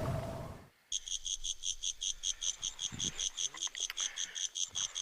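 Insect chirping: a fast, even train of high chirps, about nine a second, starting about a second in and running on until it breaks off right at the end. It is preceded by a brief stretch of low noise that fades out.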